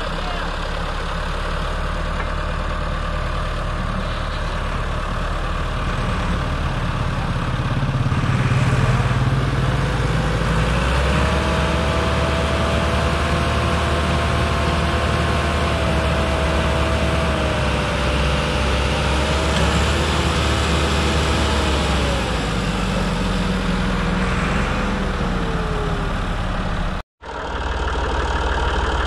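Massey Ferguson 260 tractor's diesel engine labouring under load as it tries to drag a log-laden trolley out of soft ground. From about nine seconds in it gets louder and a whine rises and holds, then sags away near the end; the sound cuts out for a moment before engine running resumes.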